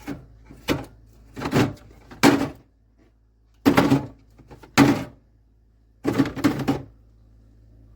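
Clear plastic soda can organizers and cans being handled and slid about: seven short sliding, scraping sounds, each under a second, with short pauses between them.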